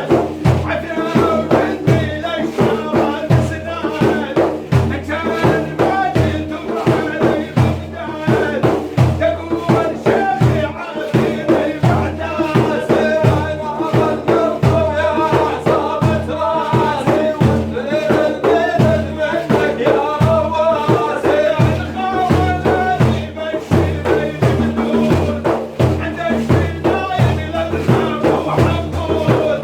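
Sufi dhikr: a male voice chanting a wavering melody over drums beating a steady, regular rhythm.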